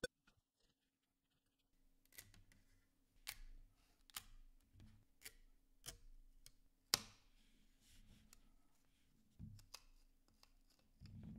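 Flush cutters snipping the small tabs that hold a break-away strip to the edge of a keyboard plate: a series of sharp clicks about a second apart, one much louder than the rest about two-thirds of the way through, with soft handling thumps in between.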